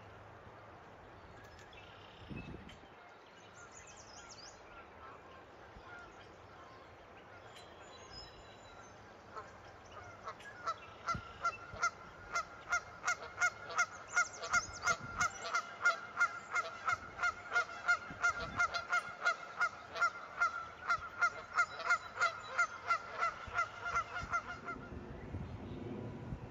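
A goose honking over and over in an even run, about three honks a second. It starts about ten seconds in and stops shortly before the end. Before it there is only faint outdoor background with a few high, faint chirps.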